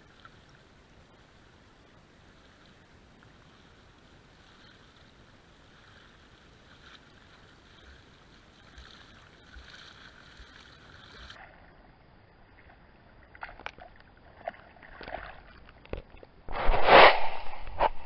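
Shallow water washing faintly around a GoPro at the waterline, then feet splashing through ankle-deep water as someone wades up to it. It ends in a loud, dense rush of splashing and knocking as the camera is picked up out of the water.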